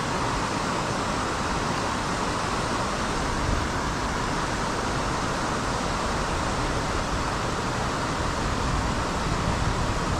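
Steady rushing of river current running over rocks, an even noise with no breaks.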